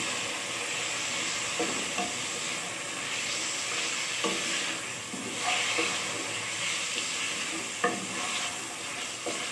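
Potatoes and peas sizzling in hot oil in a metal pan, stirred with a wooden spatula that scrapes and knocks against the pan a few times.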